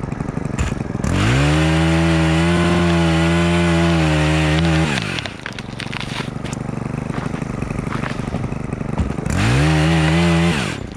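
Gas chainsaw revved to full throttle for about four seconds, then dropping back to idle. A second, shorter burst of throttle comes near the end.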